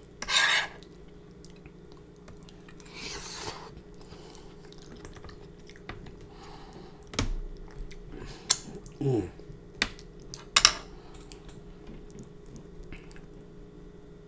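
A person eating spicy black bean noodles close to the microphone: wet chewing and slurping, with a few sharp mouth smacks and finger-licking clicks about halfway through. A faint steady hum lies underneath.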